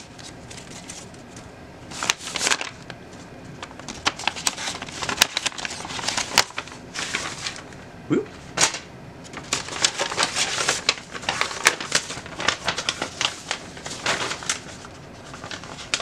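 Paper packaging being opened by hand: irregular bursts of crinkling and rustling paper with sharp crackles and clicks, in quieter and busier stretches.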